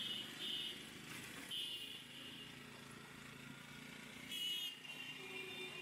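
Street traffic: vehicle engines running, with three short high-pitched horn beeps, the loudest about four and a half seconds in.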